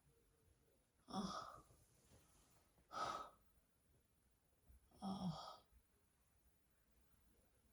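A woman's soft breathing as she dozes sitting up: three audible breaths about two seconds apart, with near silence between them.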